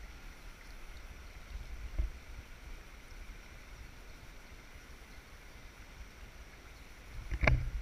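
Steady rush of a flowing shallow river, with low handling rumble close to the microphone. A single thump about two seconds in, and a louder cluster of knocks near the end.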